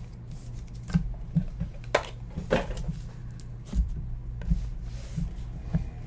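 Cardboard trading-card boxes being handled on a desk: scattered light taps, clicks and rustles as boxes are set down, picked up and opened, over a steady low hum.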